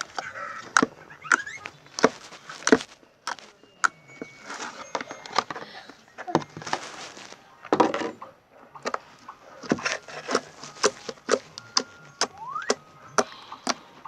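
Slime being squeezed and pressed by hand, making irregular sharp clicks and pops, at times several a second, with a couple of brief rising squeaks.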